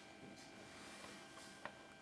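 Near silence: faint room tone with one small click about a second and a half in.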